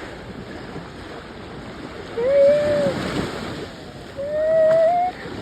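Ocean surf washing on a beach, with wind on the microphone. Over it are two drawn-out, smooth tones of the same middle pitch, each lasting under a second: one about two seconds in, and a second that rises slightly about four seconds in.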